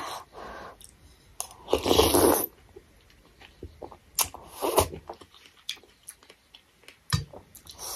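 Close-up eating sounds: a spoonful of vegetable thukpa noodle soup being slurped and chewed, the noodles undercooked and crunchy. Two louder slurping bursts, about two seconds in and again past the middle, with small mouth clicks between.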